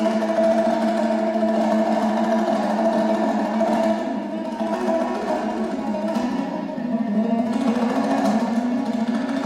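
Kazakh two-stringed dombra strummed fast, a continuous rush of rapid strokes carrying a melody, with the lower notes shifting about seven seconds in.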